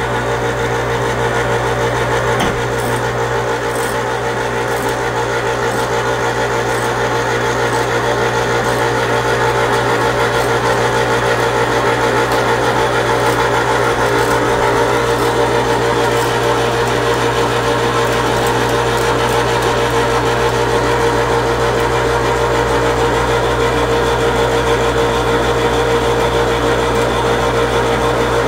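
Harbor Freight 1,100 lb electric hoist running steadily, winding the homebuilt stairlift platform up the stairs on its track. Quite noisy: a constant motor hum with a steady whine that holds the same pitch throughout.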